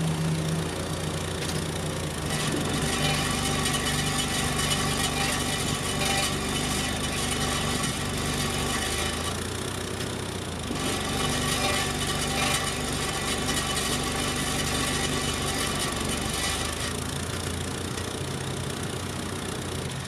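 Toyota Van Wagon's four-cylinder engine idling with its exhaust rattling. The muffler hangs on a loose, half-clamped flexible pipe, and the owner is sure the rattle comes from inside the muffler.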